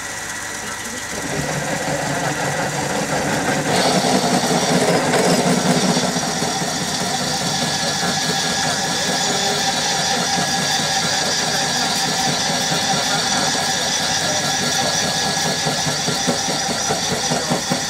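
Homemade belt-driven lathe powered by a two-speed washing-machine motor, running steadily; it grows louder about a second in, and a higher whine joins about four seconds in.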